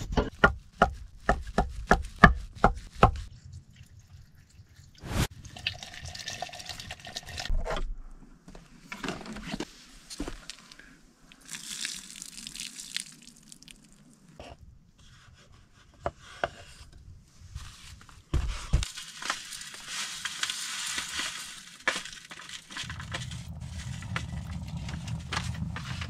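Knife chopping sausages on a wooden cutting board: about three quick cuts a second for the first three seconds. After that come scattered knocks and handling noises, stretches of hiss, and a low steady rumble near the end.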